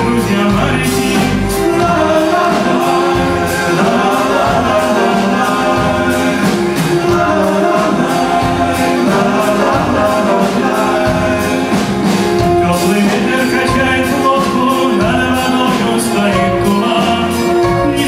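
Live band music with a male lead singer singing over the band, with a steady beat of percussion.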